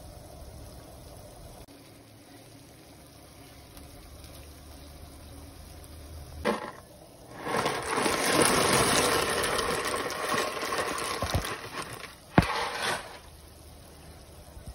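Dry penne pasta poured into a pot of boiling water: after a faint steady background and a thump, a loud rattling, splashing rush lasts about four seconds, followed by one sharp knock, the loudest sound, about twelve seconds in.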